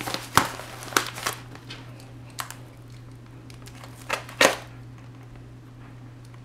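Plastic mailer crinkling as it is handled and cut open with a knife: a few sharp crinkles in the first second or so, then quieter, with a louder pair about four seconds in.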